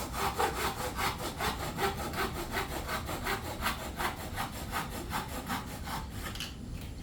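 Hand saw cutting through wood in quick, even strokes, about four to five a second, stopping shortly before the end.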